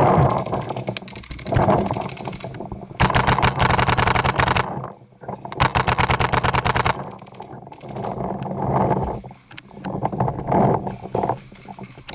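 Paintball markers firing in two rapid strings of shots, each about a second and a half long, the first about three seconds in and the second about six seconds in.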